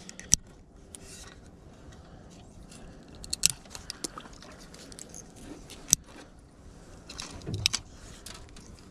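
Sharp clicks and light metallic clinks from a fishing rod and reel being handled, spaced a second or more apart, with a duller knock about seven and a half seconds in.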